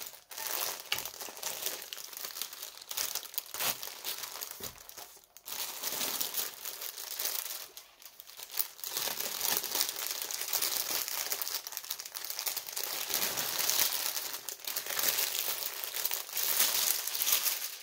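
Plastic packaging of a craft kit crinkling and rustling as it is handled, a dense crackle of many small clicks. It comes in bursts at first and turns steadier and louder about halfway through.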